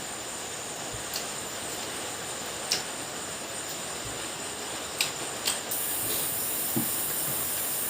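Crab being eaten: a few short, sharp clicks and cracks of shell over a steady background hiss, which gets brighter about two-thirds of the way through.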